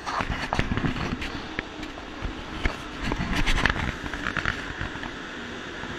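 Madrid Metro train pulling into an underground station, its rumble and wheel rattle loudest about three and a half seconds in, then settling to a steady rumble. Sharp knocks come through in the first few seconds.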